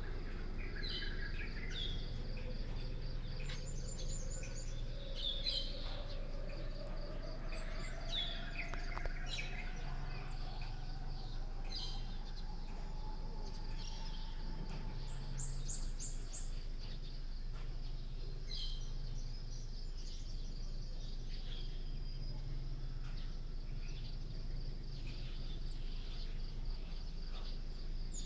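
Birds chirping again and again over a steady high insect drone, with a low hum underneath. A faint tone rises slowly through the first half.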